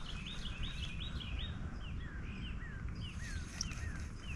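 Bird calls: a quick run of short rising chirps in the first second and a half, then a string of short descending notes at about two a second, over a low rumble.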